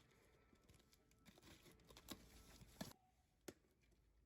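Near silence, broken by a few faint clicks and rustles of blister-packed diecast cars being handled.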